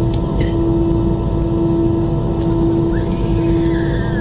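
Cabin noise of an Airbus A320 waiting on the ground with its CFM56 engines idling: a steady low rumble with a constant hum through it.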